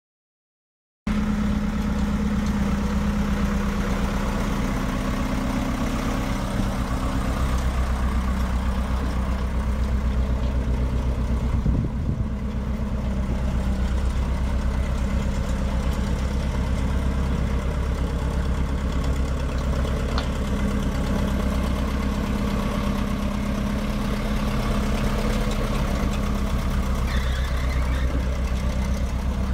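The eight-cylinder International diesel engine of a 1977 International 1750 dump truck runs steadily at low revs while the truck drives slowly. The sound begins about a second in, and there is a brief thump about twelve seconds in.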